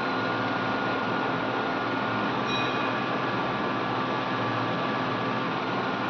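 Hot air rework gun blowing steadily, its fan giving a constant airy hiss with a faint hum, as it heats the gum coating on a washing machine circuit board to soften it.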